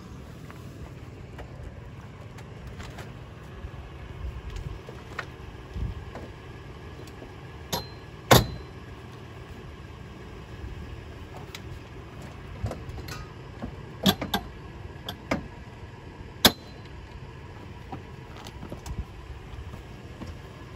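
Pop-up camper's bunk end being handled during break down: a handful of sharp metallic clicks and clanks, some ringing briefly, the loudest about eight seconds in and another near sixteen seconds, over a steady low rumble.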